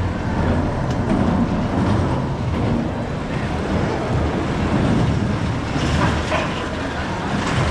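Spinning roller coaster car running on its track: a steady loud rumble with rushing noise throughout.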